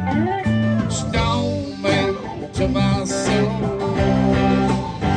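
Live rock band playing an instrumental break between vocal lines: a lead guitar line with bent, sliding notes over strummed acoustic guitar, bass and drums.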